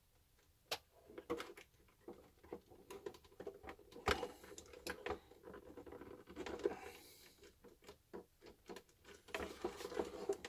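Small irregular clicks and scrapes of plastic and metal parts as the cardan driveshaft of a WPL B-36 Ural RC truck is worked onto the rear axle's splined input shaft, a tight fit. The sharpest click comes about four seconds in.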